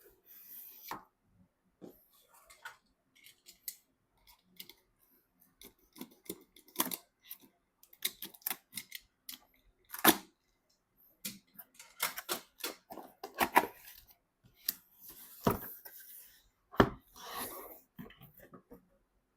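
PC parts and their packaging handled up close: scattered clicks, taps and sharp knocks among short rustles and scrapes of cardboard and plastic, with the loudest knocks about halfway through and near the end.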